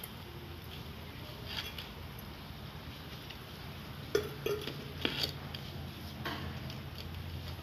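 Hands mixing and kneading a stiff besan, potato and onion pakora mixture in a steel bowl, with a handful of short clinks and scrapes from the bowl, over a steady low hum.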